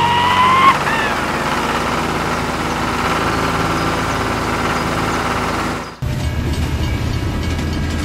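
A vehicle engine running steadily, the sound laid under a toy tractor pulling a trailer, with a brief tone near the start that slides up then drops away. About six seconds in it cuts abruptly to a lower, steady train running sound.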